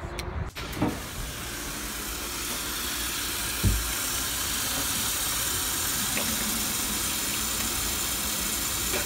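Kitchen tap running a full stream into a sink of soapy dishwater. The hiss starts about half a second in, and there is one dull knock a little past the midpoint.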